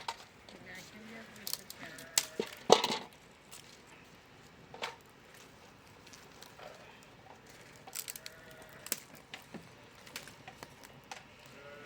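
Irregular knocks and clicks of hard objects striking, the loudest a cluster about three seconds in, with smaller taps later.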